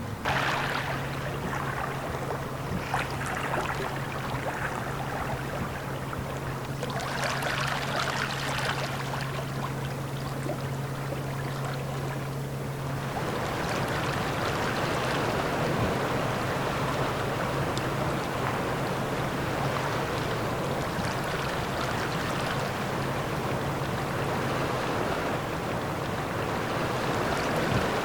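Sea water washing and splashing in repeated swells, with a steady low hum underneath that stops about halfway through, after which the wash is fuller and more even.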